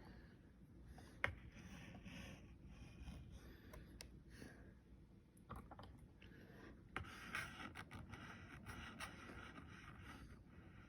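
Faint scratching and scraping strokes of a drawing or painting tool on a surface, with a sharp click about a second in.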